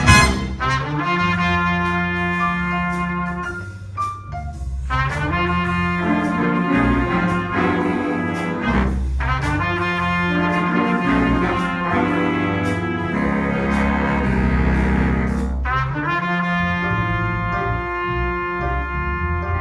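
A school band playing, with trumpets and trombones carrying the tune in held notes and sharp hits marking the beat underneath.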